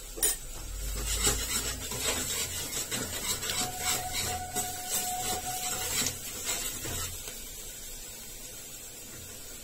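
Steel ladle scraping and clinking against the inside of a pressure cooker while stirring frying onion masala, a rapid run of scrapes that eases off after about seven seconds.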